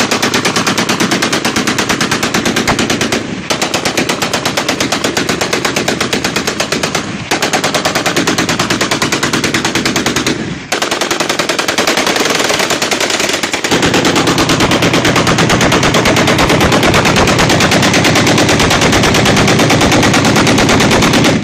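AK-47-type assault rifles (AK-47 / AMD-65, 7.62×39 mm) firing long bursts of fully automatic fire, shots running together in a rapid, near-continuous rattle. Brief breaks come about 3, 7 and 10 seconds in; the firing runs on unbroken through the last eight seconds.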